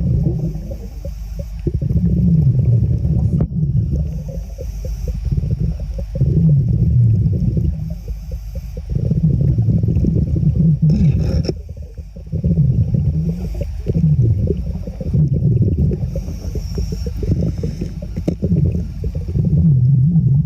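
Muffled low rumbling and crackling water noise, the kind an underwater camera picks up, swelling and easing every few seconds.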